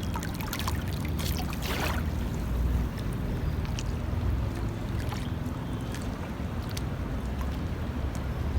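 Sea water lapping and splashing, with a few short sharp splashes, the loudest about two seconds in, over a steady low rumble.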